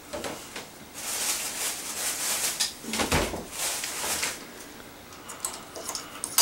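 Crinkling and rustling of packaging as the small candles for a tin pop-pop boat are taken out, about three seconds of it starting a second in, with a dull knock partway through. A few lighter clicks follow, and a sharp knock comes at the very end.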